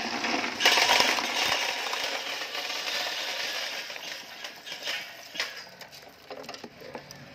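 Candlenuts and their cracked shells clattering through a candlenut cracking machine and pattering out of its chute into a cardboard box. The clatter is dense for the first few seconds and thins to scattered clicks near the end.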